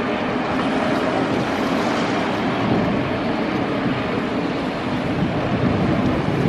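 Steady jet engine noise from a Garuda Indonesia Airbus A330 airliner flaring just above the runway to land, mixed with wind buffeting the microphone.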